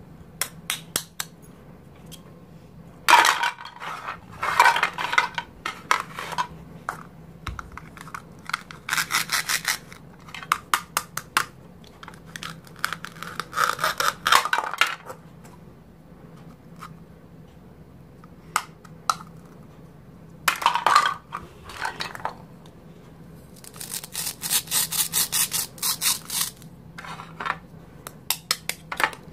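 Plastic toy knife sawing through velcro-joined toy fruits, the velcro ripping apart in short rasping bursts. Between them come single clicks and taps of the plastic pieces and knife on a plastic cutting board.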